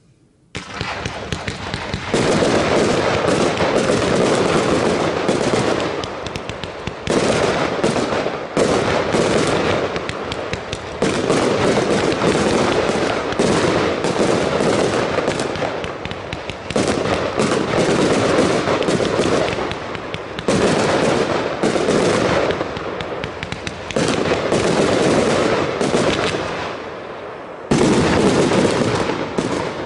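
Vulcan 1.3G 100-shot Pyro Fantasy firework cake firing: a rapid, unbroken barrage of shots and bursts starting about half a second in, surging louder every couple of seconds and fading at the very end.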